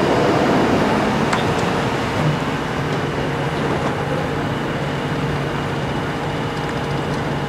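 A large engine running at a steady idle, an even low hum with no change in speed.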